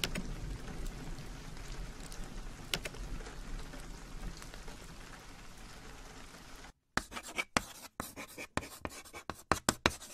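Rain ambience fading down over the first several seconds and then cutting off abruptly. After a brief gap comes a drawing sound effect: a quick, irregular run of scratchy strokes, like sketching on a board.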